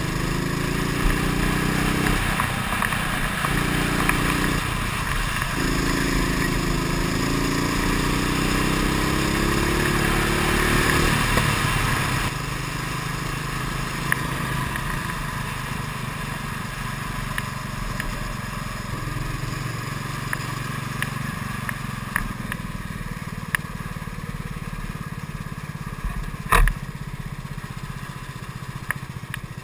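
Kart engine heard from the onboard camera, revving up in rising sweeps as the kart accelerates, with brief drops about two and five seconds in, then running quieter at lower, steadier revs from about twelve seconds on. A single sharp knock near the end.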